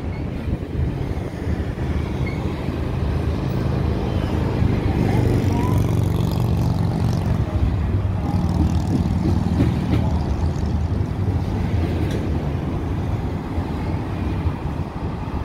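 Double-stack container freight train rolling past: a steady low rumble of wheels on rail, loudest in the middle, with a few sharp clicks.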